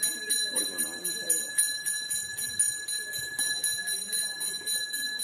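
A bell rung steadily in a fast, even rhythm of about three strokes a second, its ring carrying on between strokes.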